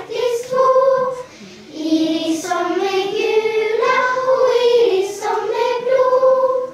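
A class of young children, about seven years old, singing a song together in unison, with long held notes and a short break about a second in.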